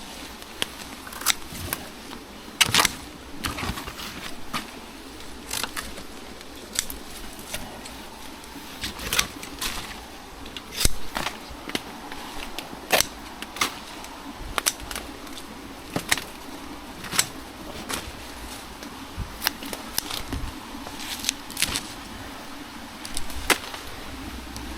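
Titanium-coated scissors snipping through flax leaves and small branches: a series of sharp cuts at irregular intervals, about one a second.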